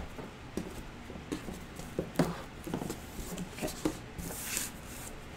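Handling noise from a masking-tape-wrapped wire armature being worked into a cloth doll body: fabric rustling and scattered light taps and knocks on the table, with a brief rustle a little after four seconds.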